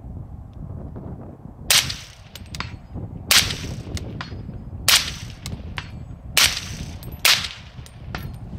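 Five suppressed rifle shots from a .300 Blackout AR-15 fitted with an AAC Titan-Ti suppressor, about a second and a half apart, each a sharp crack with a short echo. Wind buffets the microphone underneath.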